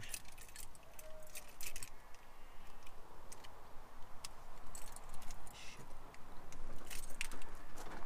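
Irregular light clicks and clinks of small hard objects being handled, a few close together, over a faint hiss.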